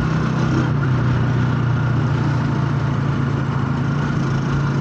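Engine of a moving passenger vehicle, heard from inside: a steady low hum with road noise, without change.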